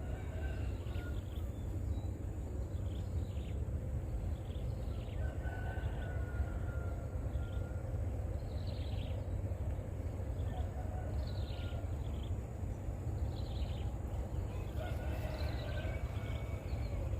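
Birds calling with short, repeated high calls that sweep downward, over a steady low rumble.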